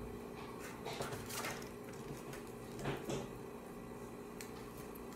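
Plastic Ultraman action figure being handled and posed: a few brief rustles and clicks, about a second in and again about three seconds in, then soft handling noise.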